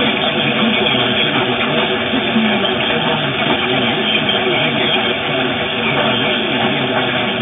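Long-distance AM radio reception of WFNN on 1330 kHz through a software-defined receiver in lower-sideband mode: a loud, steady hiss of static with the station's own audio faint and buried in it.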